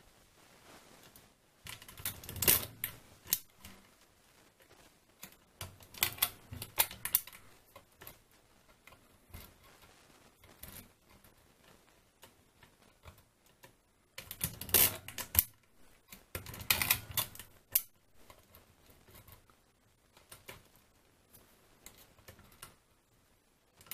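Feliks-M pinwheel mechanical calculator clicking as its setting levers are pushed through their notches and its crank is turned to add. The clicking comes in four main bursts of rapid clicks, with fainter single clicks between them.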